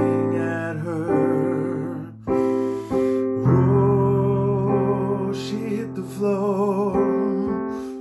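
Man singing a slow love ballad over piano accompaniment, his voice wavering with vibrato on held notes; the music briefly drops away a little after two seconds in.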